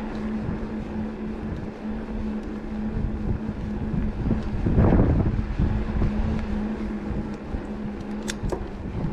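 E-bike riding: the electric motor's steady whine runs under wind buffeting the microphone, with a louder rushing swell about halfway through and a few sharp ticks near the end.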